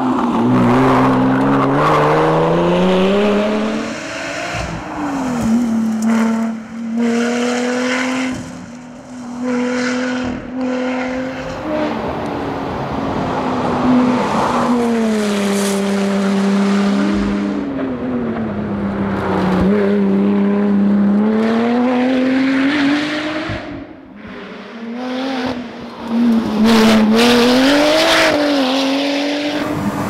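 Supercharged V6 engine of a Lotus Exige rally car driven hard, its note climbing and dropping again and again through gear changes and braking, with short dips in loudness between bursts of throttle.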